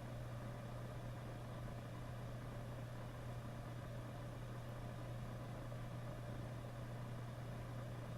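A steady low electrical hum with a faint even hiss, unchanging throughout.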